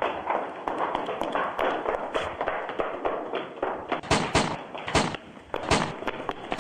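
A run of thuds and knocks: a busy, noisy stretch of faint knocks, then about five louder, sharp knocks in the second half.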